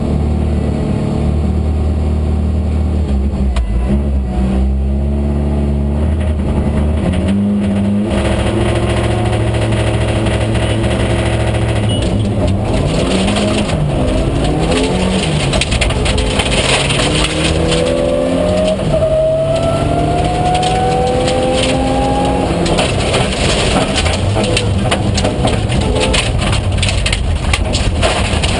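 Rally car engine heard from inside the cabin. It holds a steady note for the first several seconds, then from about twelve seconds in it revs up and down repeatedly through gear changes under hard acceleration. Gravel noise from the stage road rises along with it.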